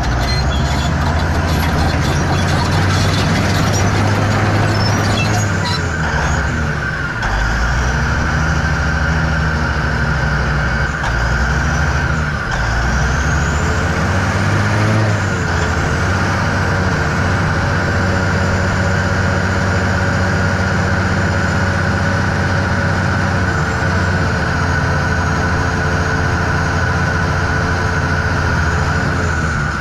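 Komatsu D375A-5 crawler dozer's six-cylinder turbo-diesel engine running as the machine travels and turns, its pitch rising and falling a few times with the throttle, with high-pitched squeals sliding up and down at times.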